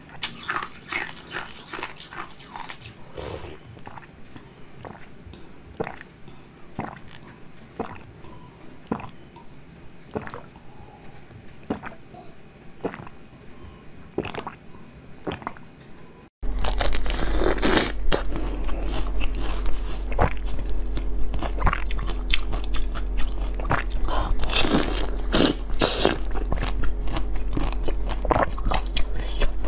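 Bites and crunching of frozen green basil-seed ice, sharp crunches every second or so. About halfway through, a cut to louder, denser crunching of orange-coloured ice over a steady low hum.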